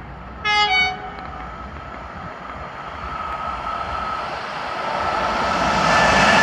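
Electric passenger locomotive, a PKP Intercity EU44 Husarz, sounds one short horn blast about half a second in while still distant. Then the approaching train's rumble and rush build steadily, loudest near the end as it nears the crossing.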